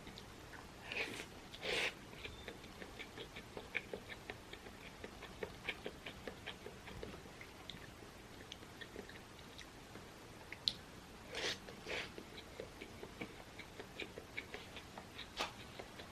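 Close-miked chewing of curry omelette rice: a steady run of small wet mouth clicks, with a few louder, longer eating sounds about a second in, near two seconds, and twice around the twelve-second mark.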